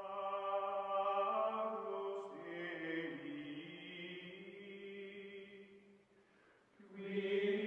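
Outro music of sustained chant-like voices holding long notes, dying away about six seconds in and swelling up again near the end.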